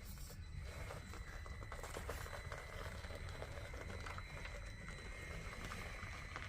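Traxxas TRX-4M micro crawler's electronic speed control squealing at a steady high pitch as the truck creeps along, over a dense crackle of small clicks from its tires and drivetrain on the course.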